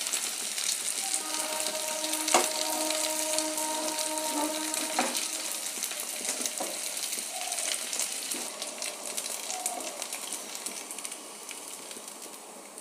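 Pieces of rice-flour fara sizzling and crackling as they deep-fry in hot oil in a kadhai, with the spatula stirring and lifting them out and knocking twice against the pan. The sizzling fades toward the end as the pan is emptied.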